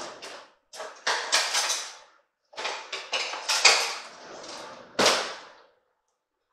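Kitchen handling sounds: a run of short, irregular rustling and crinkling noises, with a sharp knock about five seconds in.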